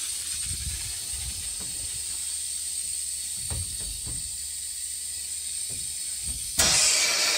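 Compressed air hissing steadily out of an RV bathtub faucet and shower line as the fresh water plumbing is blown out at about 20 psi, with a few soft handling knocks. Near the end the hiss jumps suddenly louder as more air is let through.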